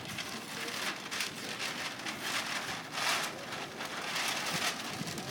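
Small crowd applauding, a dense patter of clapping that swells and eases in waves.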